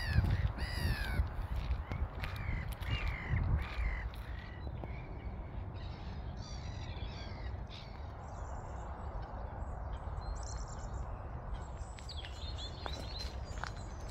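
A series of loud, arched bird calls repeating for the first four seconds or so, then fainter, high chirping of small birds.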